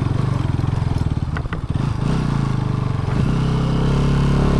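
Bajaj Pulsar NS200 single-cylinder engine running as the motorcycle rides a rough dirt track, with a few short knocks and rattles about a second and a half in. The engine then settles to a steady tone.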